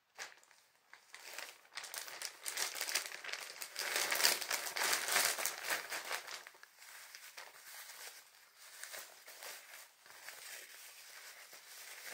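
Plastic packaging of a bag of disposable dog diapers crinkling as it is handled and a diaper pulled out, then the diaper's plastic-backed layers rustling as it is unfolded. The crinkling is loudest a few seconds in and softens to lighter rustling for the rest.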